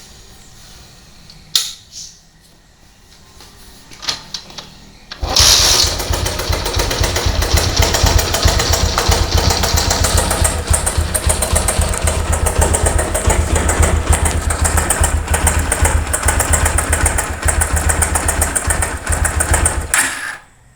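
A few sharp clicks, then about five seconds in the Honda Megapro Primus's single-cylinder engine starts and runs rough with a rapid clatter for about fifteen seconds before cutting off. The rough tek-tek clatter is the sign of a worn cam chain tensioner.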